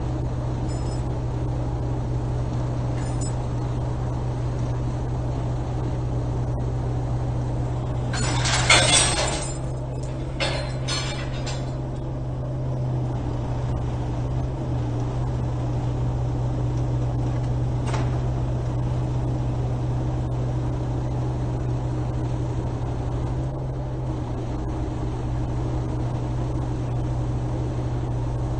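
Wrecker crane truck's engine running steadily while its boom and chain work the steel boat frame, with a loud burst of metal clanking and rattling about eight seconds in and a few more clanks around ten to eleven seconds.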